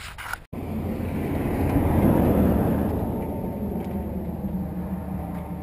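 Car engine running close by, a low steady hum, with a rushing noise that starts abruptly about half a second in, swells and slowly fades.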